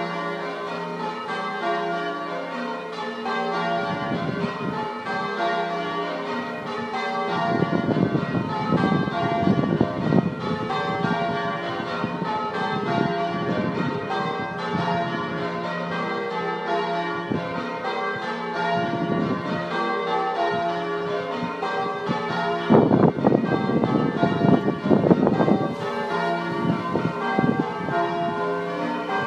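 A ring of six church bells rung one after another in a steady sequence: five Pennington bells and a 13 cwt tenor in F cast by John Taylor & Co. in 1905. A low rumbling noise comes up twice beneath the bells.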